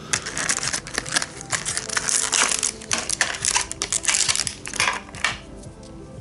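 Plastic blister pack being opened by hand, a dense run of crackling and clicking that stops about five seconds in, over faint background music.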